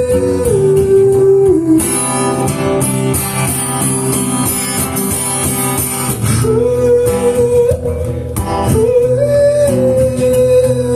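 Live song: acoustic guitar strumming chords under a voice holding long wordless notes that step and slide between pitches.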